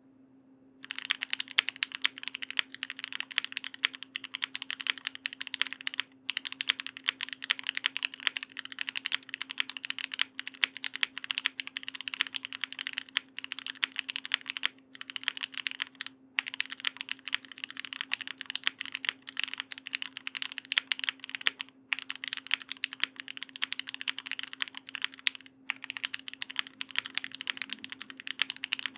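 Fast, continuous typing on an E7v2 custom mechanical keyboard, a dense run of keystroke clicks starting about a second in and broken only by a few short pauses.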